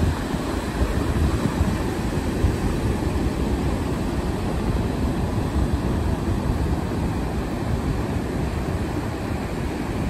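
Ocean surf breaking and washing up the beach, a steady rush of noise, with wind buffeting the microphone.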